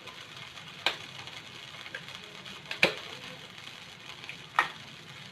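Three sharp clinks of a utensil or items against a frying pan, spaced about two seconds apart, over a faint steady hiss.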